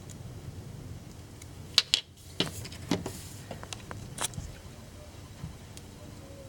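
A handful of sharp little clicks and taps, bunched between about two and four and a half seconds in, from small nuts, bolts and a tool being handled while a servo bracket is tightened onto a robot wheel.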